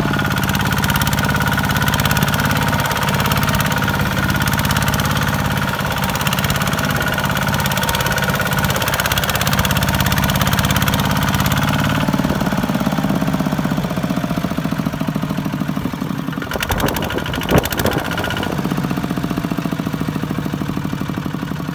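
Kubota ZT155 walking tractor's single-cylinder diesel engine running steadily under load as it hauls a loaded trailer through mud. Its note shifts about halfway through, and there is a brief knock a few seconds before the end.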